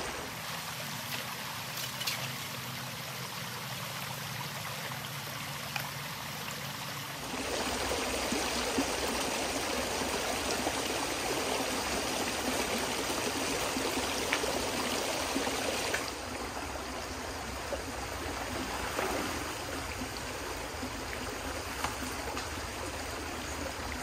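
Shallow creek water running steadily over rocks. It turns abruptly louder and fuller about seven seconds in, then eases off a little around sixteen seconds.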